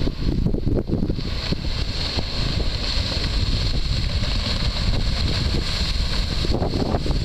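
Fire boat's outboard engines running at speed as the boat passes close by, over heavy wind buffeting on the microphone.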